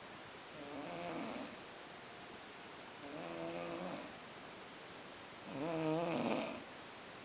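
Snoring during sleep: three long, pitched snores about two and a half seconds apart, the last the loudest.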